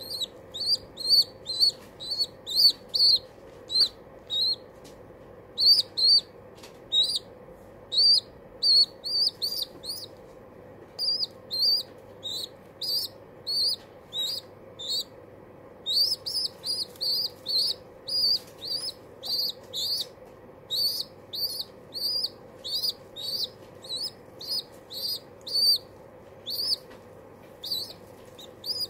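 Baby pigeon squeaking in loud, rapid runs of short high-pitched peeps, about two or three a second with brief pauses: food-begging calls, still hungry after a big feed.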